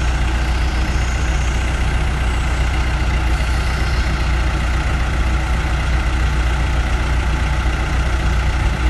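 Road sweeper truck's engine running steadily at idle, a strong low hum with no change in pace.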